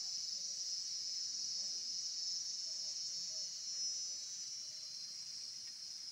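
Steady, high-pitched chorus of insects buzzing in the surrounding vegetation.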